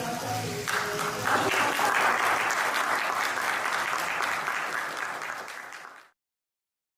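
Hand applause from a small audience, starting about a second in over the tail of some background music, then fading out and cutting off about six seconds in.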